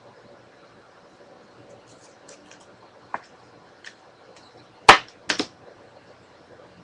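Trading cards being handled: a few light ticks and a click, then a sharp snap about five seconds in followed by two more quick clicks.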